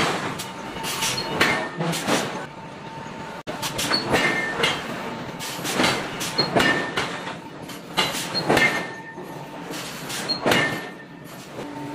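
Heavy forging machinery working a red-hot steel billet: irregular metallic clanks and scrapes, a dozen or so, over a faint steady hum.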